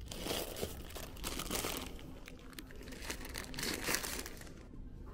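A plastic-wrapped multipack of instant noodles crinkling as it is taken off the shelf and handled, in several bursts of crackling that fade shortly before the end.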